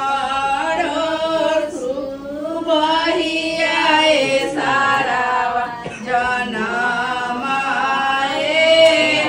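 A group of women singing a traditional Bihari wedding song (geet) without instruments, in long held notes that rise and fall.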